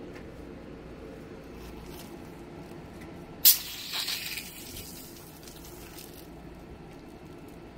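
Water spraying out of the open brass end of a Lefree expandable garden hose: a sudden loud burst about three and a half seconds in, then a spray that fades away over a couple of seconds. This is the hose being emptied after its first fill, part of the flush-and-expand routine for first use.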